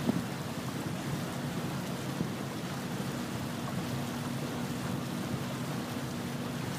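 A boat's engine running at a steady low hum under the rush of wind and water as the boat moves along. A thump comes right at the start and a lighter knock about two seconds in.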